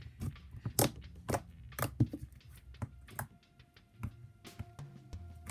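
Blue slime with white clay mixed in being kneaded and pressed by hand, giving sharp sticky clicks and pops, several a second at first and fewer after about three seconds. Faint background music with held tones sits under it.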